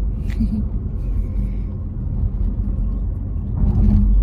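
Steady low rumble of a car on the move, heard inside the cabin, with a few faint rustles.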